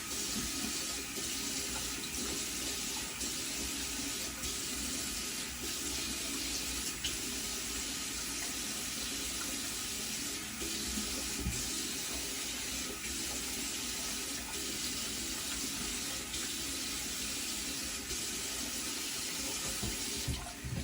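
Bathroom tap running steadily into a sink while a freshly shaved face is rinsed, with small splashes of water; the flow drops away near the end.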